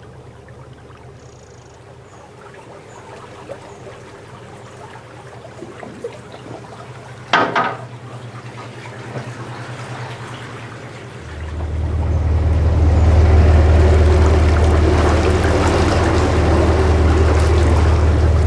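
Water trickling and lapping along a moving narrowboat's hull, with the boat's engine a faint steady low hum, and one brief sharp sound about seven seconds in. About eleven seconds in it changes to the engine's much louder steady low drone with water churning, as heard from the stern.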